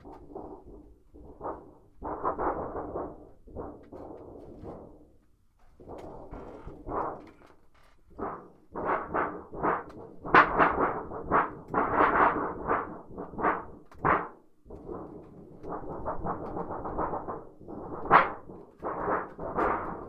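A thin sheet of hardware-store sheet metal shaken and flexed by hand as a homemade thunder sheet: a run of wobbling swells about two to three a second, loudest around the middle, with one sharp crack near the end.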